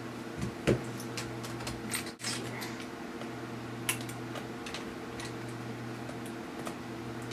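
Small screws being driven back into a laptop's screen bezel with a hand screwdriver: scattered light ticks and clicks, the sharpest about a second in and again near four seconds, over a steady electrical hum.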